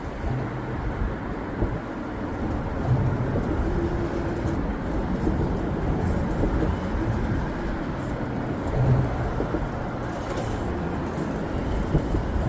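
RC rock crawler's electric motor and gears running in short spurts as it climbs over rock, over a steady low rumbling noise.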